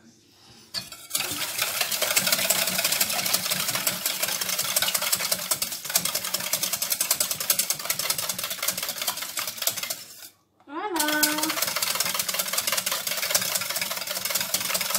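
Raw eggs being beaten by hand in a stainless steel mixing bowl, the utensil clinking and scraping rapidly against the metal. It stops for a moment about two-thirds of the way through and then starts again.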